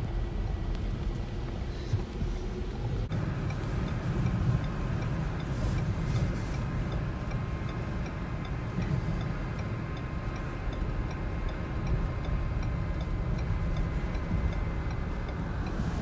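Low rumble of wind and road noise heard from inside a car's cabin driving through a blizzard. After a cut about three seconds in, a steady light ticking of about two clicks a second, like the car's turn-signal or hazard flasher, runs over the rumble.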